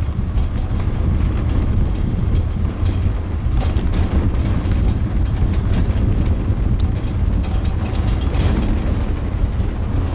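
Steady low rumble of an open-sided sightseeing cart moving along a paved road, mostly wind and road noise buffeting the microphone.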